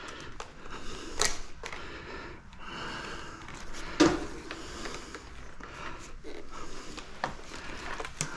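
An old pull-behind canister vacuum cleaner being handled and turned over: rustling with scattered clicks and knocks, the loudest knock about four seconds in.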